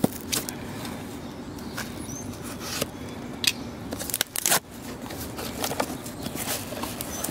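Cardboard shipping box being torn open by hand: irregular crackling, scraping and short rips of the cardboard, with the loudest tear about four and a half seconds in, over a steady low hum.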